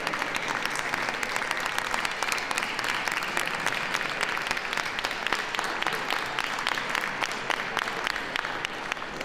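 Crowd applauding: a dense, steady patter of many hands clapping that thins a little near the end.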